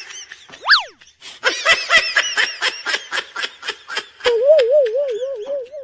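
Canned laughter of snickering and chuckling, a comedy laugh-track effect. A quick whistle-like pitch glide rises and falls near the start, and a wobbling, wavering tone comes in over the last second and a half.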